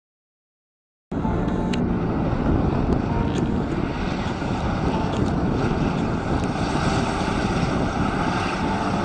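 Silence, then about a second in a Namer heavy tracked armoured carrier's engine and tracks start suddenly and run as it drives over dirt, with scattered sharp ticks and wind on the microphone.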